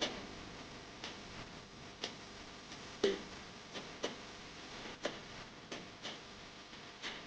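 A kitchen utensil knocking against cookware: sharp clicks at an irregular rhythm of about two a second. The loudest, about three seconds in, has a brief ring.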